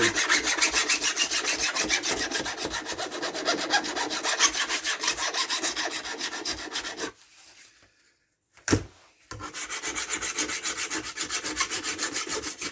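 Hand file rasping back and forth on the steel guide bar of a Stihl MS170 chainsaw, taking burrs off the bar, in quick even strokes of about five or six a second. The filing stops about seven seconds in; a single knock follows, then the filing starts again.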